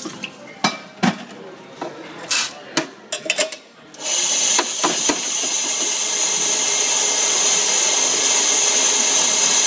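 Several clicks and knocks of cups and machine parts, then about four seconds in a loud, steady, high hiss from the coffee machine starts and keeps going.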